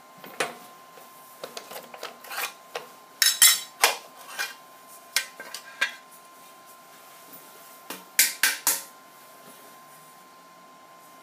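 Aluminium window-frame extrusions clanking and clinking against the steel mill vise and each other as they are handled out of it, in irregular metallic knocks, loudest about three and a half and eight seconds in.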